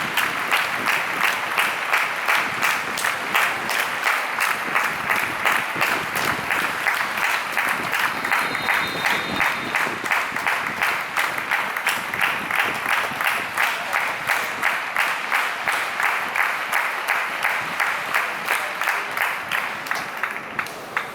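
Football stadium crowd clapping in unison to a steady beat, about two claps a second, fading near the end.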